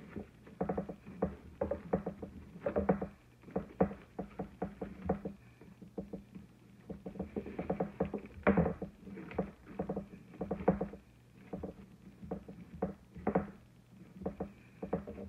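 Wired fabric ribbon rustling and crinkling in quick, irregular bursts as hands tie and shape a bow on a metal gift tin. A faint steady hum runs underneath.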